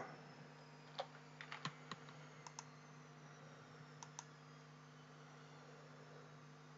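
Scattered clicks of computer keys and mouse buttons, about ten short taps clustered in the first four seconds, over a faint low hum.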